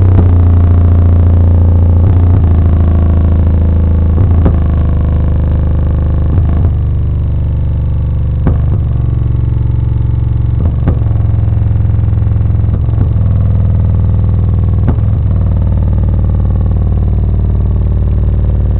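Two old-school MTX 10-inch subwoofers in a ported box playing a loud, sustained deep bass note at big cone excursion, with a sharp click about every two seconds.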